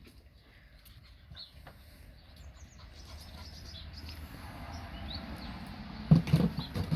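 Labrador puppies romping: scuffling that grows louder, then several loud thumps about six seconds in. Small birds chirp now and then, short rising chirps.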